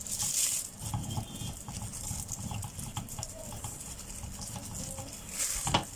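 Boiled sweet potato grated on a stainless steel box grater standing in a ceramic bowl: repeated rasping strokes with soft knocks of the grater, and a sharp louder knock just before the end.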